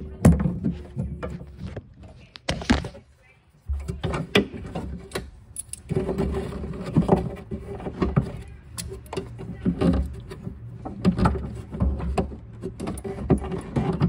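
Irregular small metal clicks, clinks and handling knocks from the saddlebag mounting pin and its hardware being lined up and screwed in by hand.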